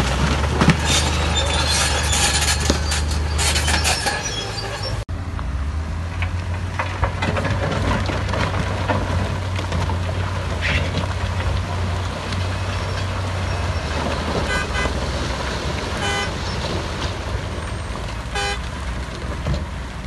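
Heavy diesel earthmoving machinery running with a deep, steady engine drone, and three short horn toots in the second half.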